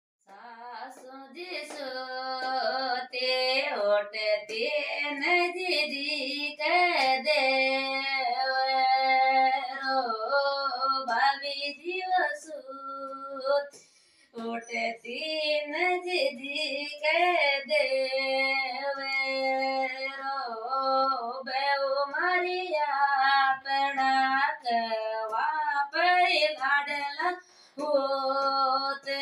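A woman singing a Hindi devotional bhajan in a single voice, with a brief pause about halfway through.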